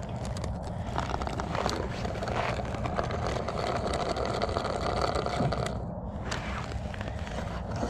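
Scraping and grinding on ice and snow over a steady low rumble, with a denser grinding stretch in the middle that breaks off briefly near the end.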